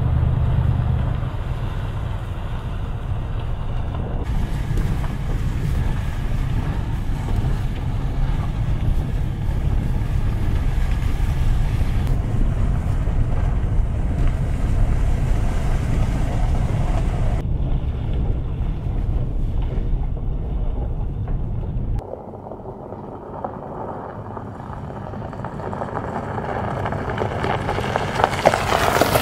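Toyota Tundra pickup driving on a back road: a steady low engine and road drone heard from inside the cab. After a sudden drop, the sound of the truck approaching from outside grows louder near the end as it rolls closer on the snowy gravel.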